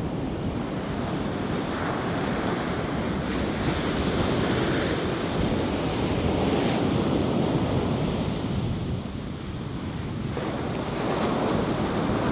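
Ocean surf washing on a beach, with wind buffeting the microphone. The noise swells and eases, dips about nine seconds in, then builds again.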